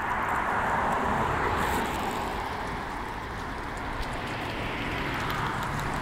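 Car passing on a street: tyre and road noise swells over the first second or two, eases off, then builds again near the end as more traffic approaches.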